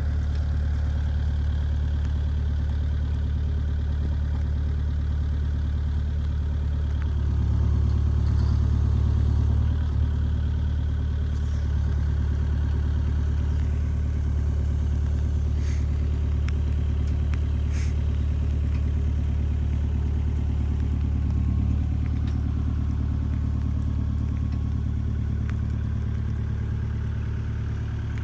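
Engine running steadily near idle, getting louder for about two seconds a quarter of the way in, with a few faint clicks over it.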